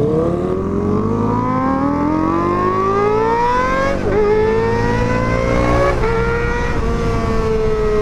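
Kawasaki ZX-25RR inline-four engine through a Pro Liner aftermarket exhaust, accelerating hard: the pitch climbs steadily for about four seconds, drops briefly at a quick upshift, climbs again, then levels off and eases slightly near the end.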